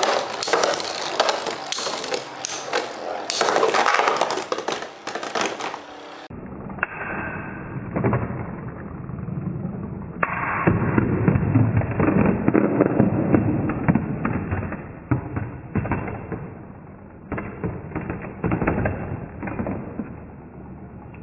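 Two metal Beyblade tops, Lightning L-Drago 100 HF and Meteo L-Drago LW105 LF, spinning against each other in a stadium: rapid clicks, knocks and scraping as their metal wheels clash. The sound turns duller about six seconds in.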